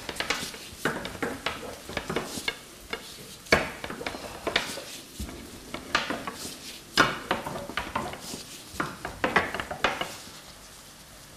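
Food-preparation handling noise: irregular clicks, taps and rustles of gloved hands shredding boiled chicken and working dough over plates and a board. Two sharper knocks come about three and a half seconds in and again about seven seconds in.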